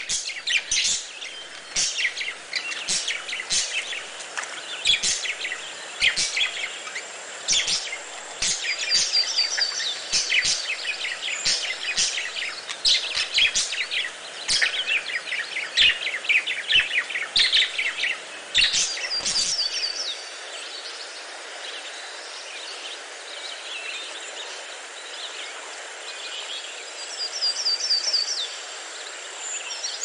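Budgerigars chirping and chattering in quick, bright calls. The chirping thins out about two-thirds of the way through, leaving softer background noise with a few faint chirps.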